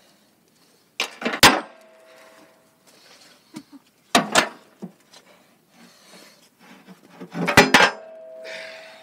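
Metal-on-metal clanks from steel tools on a backhoe loader's bucket and pivot hardware: three bursts of sharp clanks about three seconds apart, the first and last leaving a brief metallic ringing tone.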